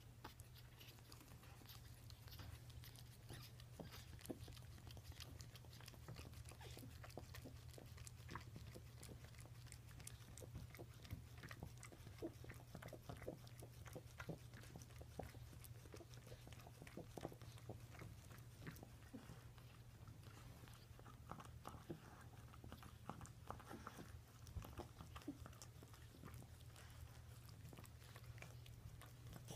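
Faint wet clicking and smacking of three-day-old Maltese puppies suckling at their mother, over a steady low hum.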